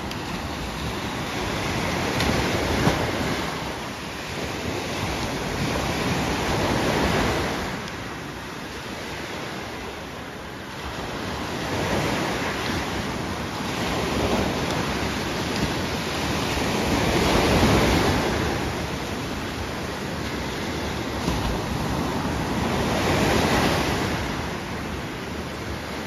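Small sea waves breaking and washing up the beach, the surf swelling and falling away about every five seconds.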